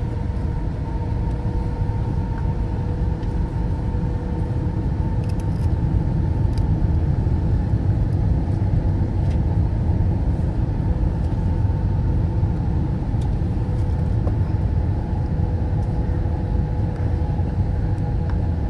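Airbus A321 cabin noise in flight: a steady deep rumble of engines and rushing air, with a low hum and a higher, fainter whine held steady above it, heard from a window seat over the wing during the descent.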